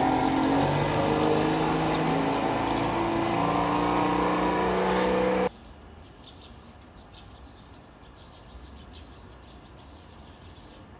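Small boat's outboard motor running, its pitch slowly rising as the boat pulls away from the landing. It cuts off abruptly about five and a half seconds in, leaving quiet outdoor background with birds chirping.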